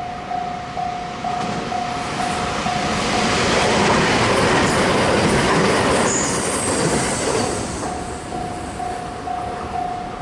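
Japanese level-crossing alarm ringing a steady electronic ding about twice a second. From a few seconds in it is drowned out for several seconds by a train passing over the crossing, rumbling wheel-and-rail noise with a brief high wheel squeal. The ding stands out again near the end.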